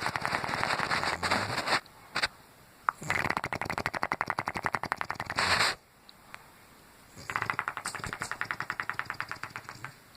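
Snoring with the lips flapping on each breath, a fast flutter that sounds like passing gas but is snoring. There are three long snores of about two to three seconds each, with short pauses between them.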